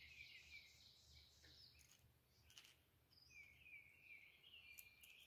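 Near silence with faint bird chirps, a quick run of them in the last two seconds.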